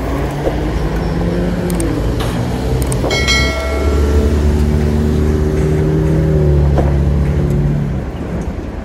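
Car engines running in nearby traffic, a loud, steady low hum whose pitch shifts slowly and which eases off about eight seconds in. About three seconds in, a click and a short bright chime from a subscribe-button sound effect.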